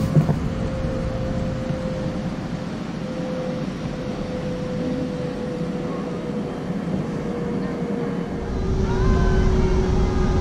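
A steady mechanical hum that slowly sinks in pitch, over wind and water noise. About eight and a half seconds in, the hum drops lower and the low rumble of wind and water gets louder.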